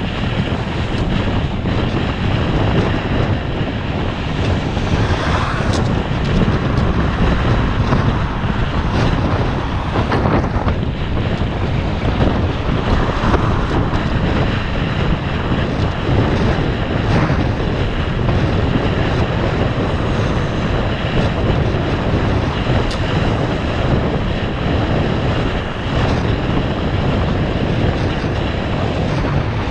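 Steady wind rushing and buffeting on the microphone of a camera on a moving bicycle.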